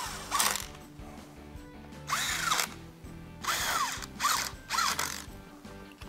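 Cordless ratchet running down the bolts of a timing chain guide and tensioner on a Chrysler 3.6 Pentastar V6, in about five short bursts. Each burst is a motor whine that rises and falls in pitch as the tool spins up and winds down.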